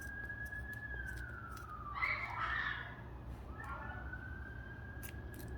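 A siren wailing in the background in two slow rise-and-fall cycles. About two seconds in there is a short rasping crunch from scissors cutting through the rubber air hose, with small handling clicks.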